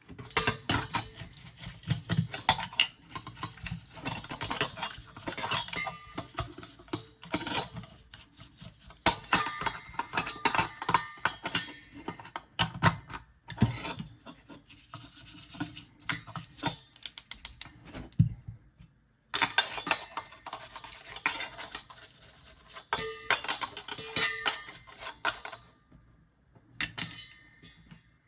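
Hands working on a removed Meteor washing-machine door lock: a busy run of small clicks, taps, rattles and scraping of its plastic and metal parts, with a few short pauses.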